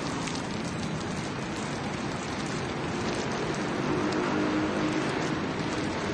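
Steady heavy rain pouring down, a dense hiss of countless drops.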